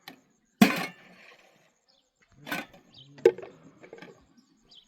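Three sharp knocks or clatters, the first about half a second in, then two more close together about two and a half and three seconds in.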